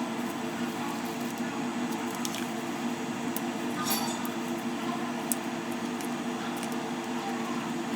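A steady mechanical hum holding a few fixed pitches, with a handful of faint, sharp clicks and taps scattered through it.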